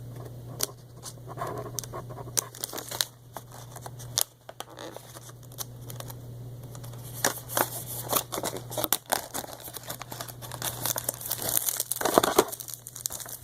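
A snack packet crinkling and tearing as it is handled and opened: irregular rustles and crackles that grow busier after about seven seconds.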